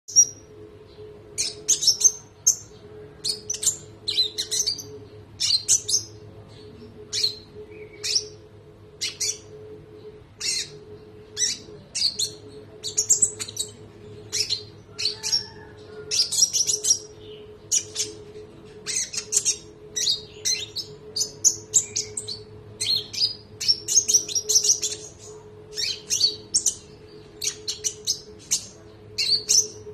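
Konin songbird singing: short, sharp, high chirping phrases, one after another with brief gaps, over a faint steady hum.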